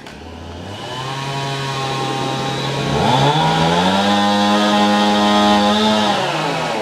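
Two-stroke chainsaw running, revving up to full throttle about three seconds in, holding there, then easing back toward idle near the end, as in bucking felled trees into firewood rounds.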